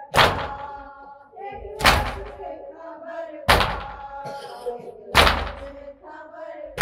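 Matam: a group beating their chests in unison, one loud slapping strike about every 1.7 seconds, with voices chanting a nauha lament between the strikes.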